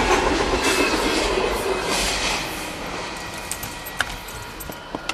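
Union Pacific freight train's cars rolling past, their wheel and car noise fading steadily as the train moves away. A few sharp clicks near the end.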